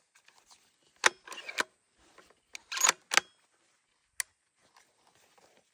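Bolt-action rifle being handled: several sharp metallic clicks with short sliding, rattling scrapes between them, as when the bolt is worked and the rifle is readied to fire.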